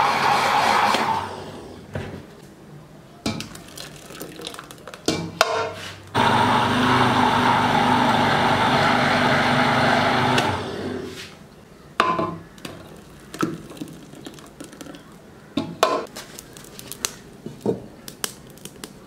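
Electric blender grinding fresh strawberries into a purée. It runs steadily, stops about a second in, then runs again for about four seconds from around six seconds in. Scattered clicks and knocks of handling follow.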